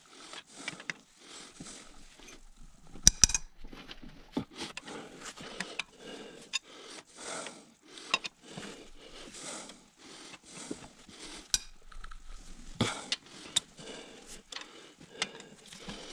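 Hand ratchet wrench clicking in repeated short strokes, about two a second, as bolts are undone, with a few sharp metallic clinks.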